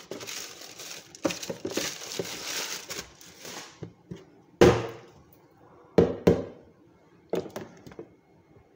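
Tomatoes being handled in a plastic tray. A rustling handling noise runs for about four seconds, then come five sharp knocks: one loud one, then two pairs.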